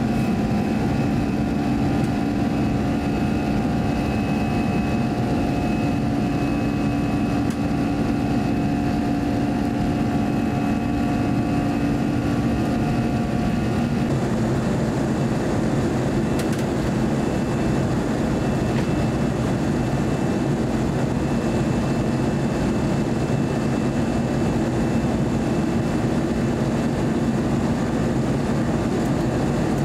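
Cabin sound of an Airbus A321-200 climbing after takeoff: a steady rush of jet engines and airflow with several steady engine tones over it. About halfway through the tones fade and a broader, even rush remains.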